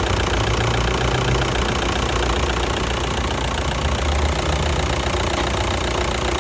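VW Touran 2.0-litre diesel idling with a DSG-6 gearbox, with a knocking rattle from the dual-mass flywheel that comes and goes. The sign of worn DSG clutches that need replacing.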